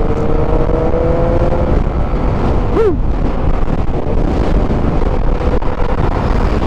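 Wind rush and engine of a Yamaha motor scooter running at cruising speed, recorded from the moving scooter. A steady whine holds for the first second and a half or so, and a short rising-and-falling chirp comes about three seconds in.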